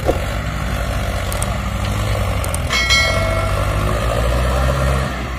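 Sonalika DI 750 tractor's diesel engine running steadily under heavy load as it pulls a loaded soil trolley. About halfway through, a metallic clang rings out and fades over about a second.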